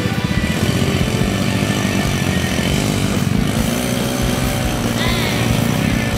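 Small motorcycle engines running and revving as the bikes labour up a steep dirt slope.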